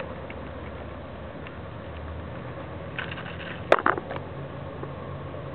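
A tabby cat rubbing its head and body against the phone, giving a brief, loud burst of scraping and bumping on the microphone a little under four seconds in, over a steady low hum.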